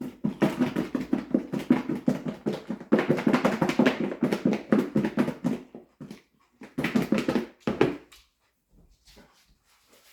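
A dog whining and grumbling in a long run of rapid, pitched pulses, breaking off about six seconds in and coming back briefly for about a second.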